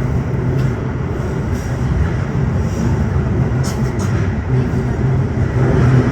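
Tokyo Metro 15000 series subway train running through a tunnel, heard from on board: a steady rumble of wheels on rail with a low hum underneath. A couple of faint clicks come about three and a half to four seconds in.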